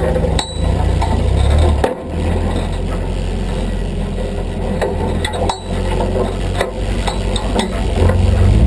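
Steady rushing of a waterfall, with a heavy low rumble and a few sharp clicks.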